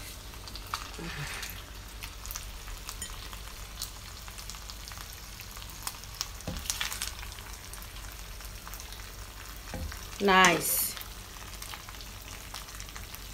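Creamy shrimp fettuccine sizzling in a nonstick frying pan as a spoon stirs and turns it, with soft scrapes and clicks of the spoon against the pan. A brief voice sound about ten seconds in.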